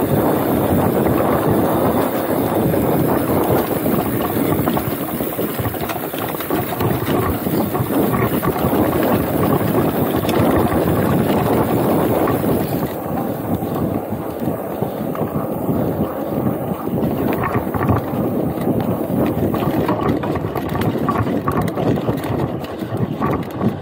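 A hardtail-style trail ride heard from the rider's chest: mountain bike tyres rolling fast over a dirt singletrack with wind rushing over the action camera's microphone, and a steady patter of small rattles and knocks from the bike.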